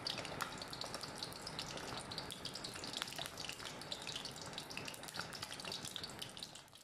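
An egg frying in hot oil in a pan, sizzling steadily with many small crackles and pops.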